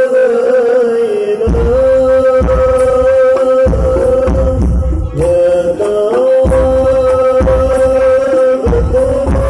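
Live sholawat music over a PA system: a held, ornamented melody line with Middle Eastern inflections. Hand drums and bass come in about a second and a half in and drop out briefly twice.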